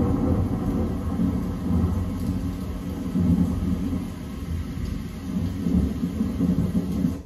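Monsoon thunderstorm: rolling thunder over rain, a continuous low rumble that cuts off suddenly at the end.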